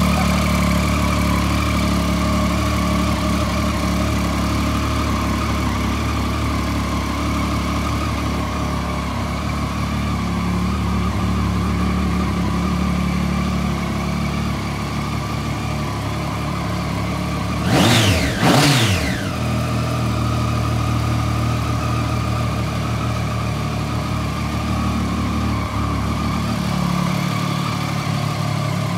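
Triumph Street Triple 675R's 675 cc inline three-cylinder engine idling steadily, with two quick throttle blips in a row about two-thirds of the way through.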